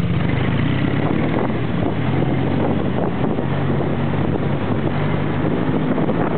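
Small 110 cc quad's single-cylinder four-stroke engine running under way, its note shifting with the throttle, with heavy wind buffeting on the microphone.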